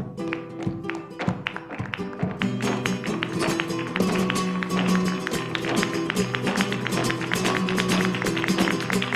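Flamenco music: guitar and held notes under quick, dense percussive taps, getting louder and busier about two seconds in.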